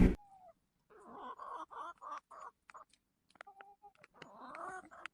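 Domestic fowl calling: a quick run of short calls, a brief pause, then a few more calls.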